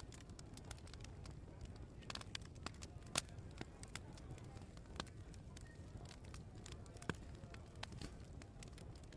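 Open wood fire crackling, with irregular sharp pops; the loudest come about three seconds and seven seconds in. A faint low murmur of pub chatter runs behind it.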